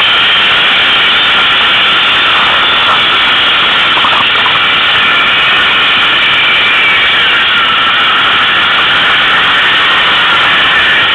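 ATV engine running steadily under way, loud and unbroken, heard from on board the machine.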